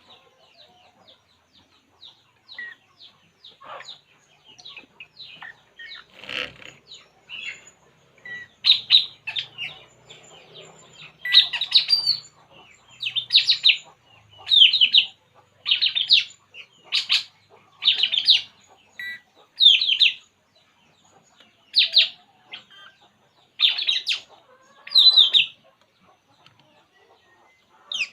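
Burung puling songbird calling: faint rapid chips at first, then, from about eight seconds in, a run of loud, short, high chirping phrases about once a second.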